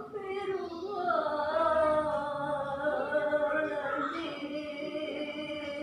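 A singing voice holding long, drawn-out notes that waver slightly in pitch.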